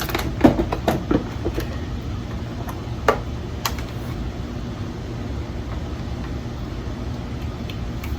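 Several sharp plastic clicks and knocks in the first second and a half, then two more about three and three and a half seconds in, as a charger plug is handled and pushed into its connector, over a steady low hum.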